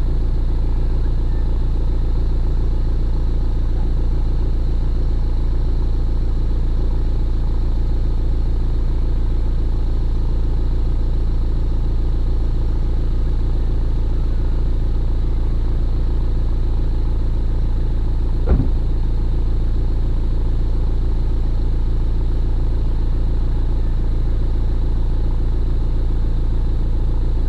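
A steady low mechanical hum and rumble, unchanging in level and pitch, with a short falling tone about two-thirds of the way through.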